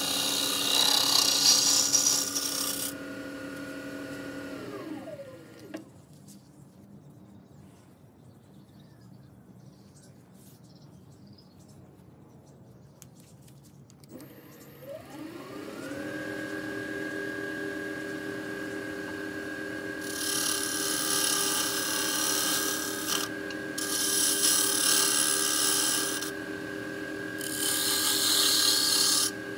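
Wood lathe running with a steady motor whine while a gouge cuts the spinning wooden blank with a scraping hiss. About three seconds in the lathe is switched off and winds down to a stop; after a quiet pause it winds back up to speed and the gouge makes three more cuts.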